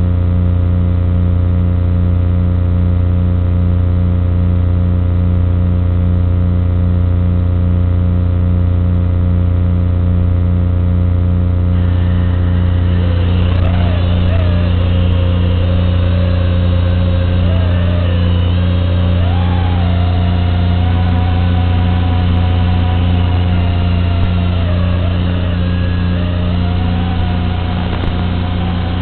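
Steady low electrical hum and buzz. From about twelve seconds in, a racing quadcopter's motors join it as a wavering whine that rises and falls in pitch with the throttle.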